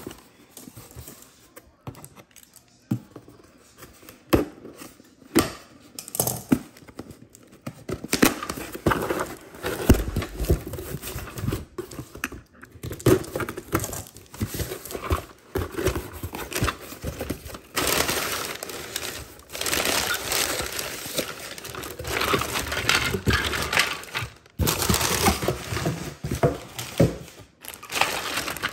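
Hands opening a taped cardboard shipping box: knocks and scrapes on the cardboard with rustling and tearing, building to long stretches of handling noise. Near the end, crinkling of a clear plastic zip bag of toys as it is handled.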